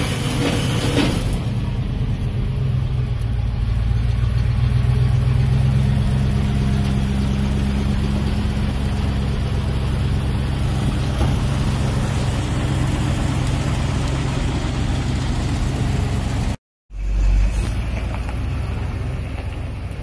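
1978 International 1700 truck's engine idling steadily, with a brief dropout to silence near the end.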